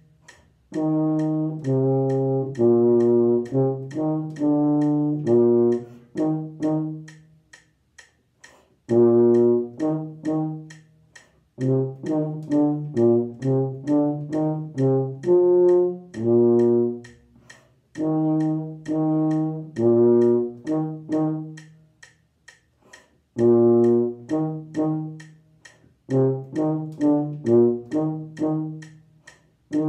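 Euphonium playing a band part solo: four phrases of short, separate notes with brief rests between them. A faint, steady ticking runs underneath at about four ticks a second.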